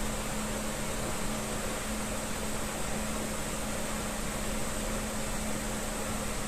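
A steady, unbroken hum with one constant low tone over an even hiss, like a fan or household appliance running, with no knocks in it.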